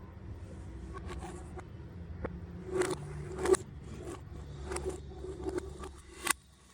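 Toy pipes being worked by hand, giving a run of scraping, ratcheting strokes, the loudest two about three seconds in and a sharp one shortly before the end.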